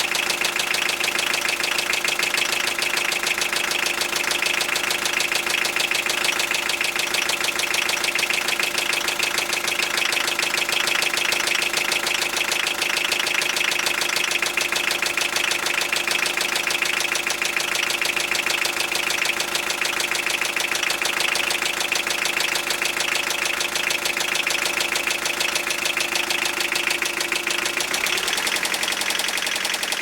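Toyota 3C-TE four-cylinder turbodiesel engine running steadily at idle with a knock in the engine. Its pitch drops about two seconds before the end.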